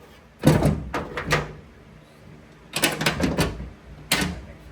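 Sharp knocks and clanks in short bunches of several hits each: about half a second in, around one second, a longer run near three seconds, and once more near the end.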